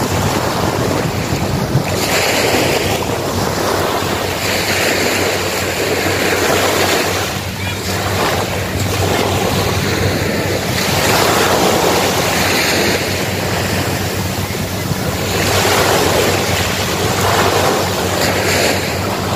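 Small waves washing up on a sandy beach, the surf swelling and easing every couple of seconds, with wind rumbling on the microphone.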